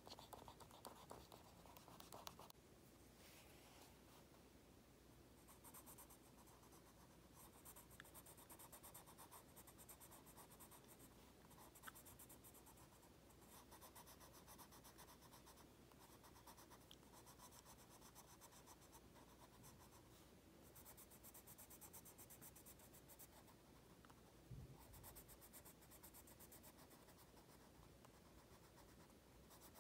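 Faint scratching of a Prismacolor Premier colored pencil shading paper in repeated short back-and-forth strokes, after a couple of seconds of pen strokes at the start. A soft bump sounds near the end.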